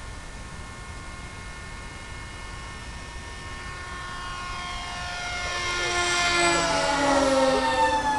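Electric motor and propeller whine of a radio-controlled model plane. It swells over the second half and drops in pitch as the plane flies close past.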